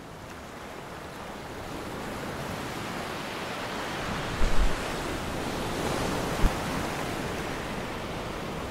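Strong wind and rough sea rushing past a sailing yacht, a steady noisy hiss that builds slightly. Twice around the middle there is a brief low thump.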